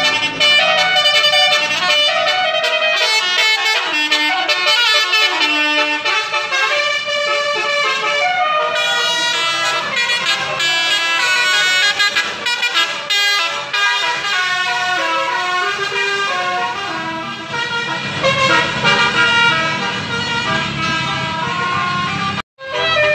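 Telolet basuri musical multi-tone horns playing melodic horn tunes, several horns answering one another, with a brief break just before the end.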